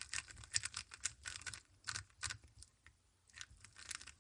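MoYu WeiLong GTS M magnetic 3x3 speedcube being turned by hand: quick, irregular plastic clicks and clacks of its layers, with a short pause about three seconds in. The cube is freshly lubed and a little gummed up, which dulls the feel of the magnets.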